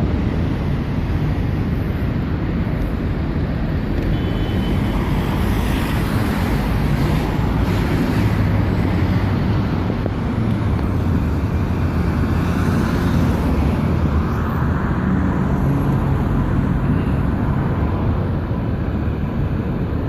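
Heavy road traffic with buses: engines and tyres in a steady din, with a heavier engine passing about eight seconds in and again about fifteen seconds in.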